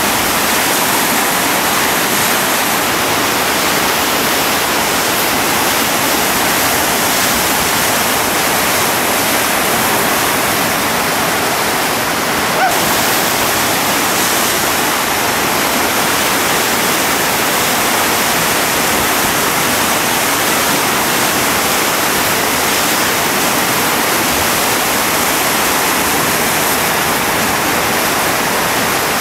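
Loud, steady rush of whitewater rapids, the river pouring over a steep drop between boulders and churning in the hole below.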